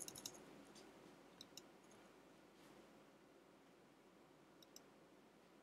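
Faint computer mouse button clicks over near silence: a quick cluster at the start, a pair about a second and a half in, and another pair near the end.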